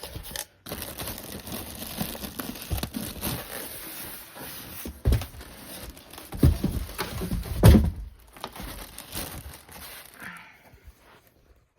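PC case packaging being handled as the case is unboxed: plastic and cardboard crinkling and rustling, with three heavy thumps around the middle.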